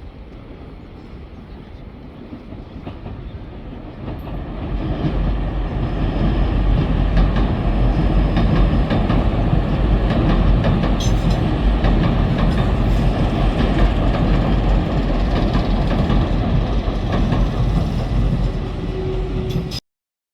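A train running past, its rumble building over the first few seconds and then staying loud, with faint ticking from the wheels on the rails. The sound cuts off abruptly near the end.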